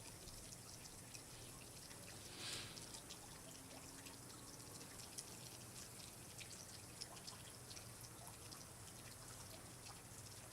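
Faint water dripping and trickling, with scattered small drips and one brief, slightly louder splash about two and a half seconds in.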